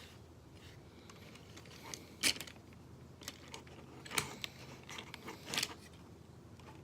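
Plastic Transformers figure being handled and posed, its parts giving a few sharp clicks and knocks, the loudest about two seconds in.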